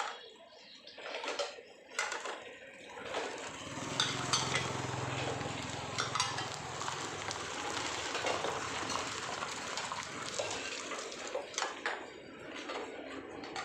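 Dishes and cutlery clinking and knocking against each other while dishes are washed by hand. A steady rush of noise runs through the middle for several seconds.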